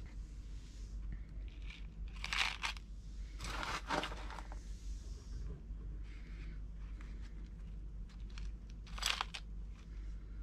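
Orchid bark and perlite potting mix crunching and rustling in a plastic pot as it is pressed and pushed around seedling roots, in a few short scrapes over a low steady hum.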